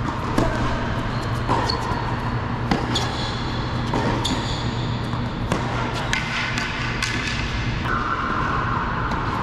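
Tennis rally on an indoor hard court: sharp pocks of rackets striking the ball and the ball bouncing, coming every second or so, over a steady low hum.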